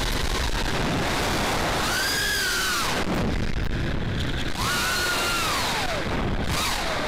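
FPV racing quad's propellers on T-Motor F40 brushless motors whining over a steady rush of wind and prop noise. The whine swoops up and back down in pitch twice as the pilot punches and eases the throttle.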